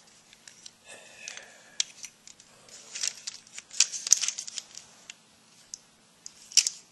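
Small plastic toy figure and its loose parts being handled: scattered light clicks, taps and scratchy rustles of plastic, busiest around the middle, with a louder cluster near the end.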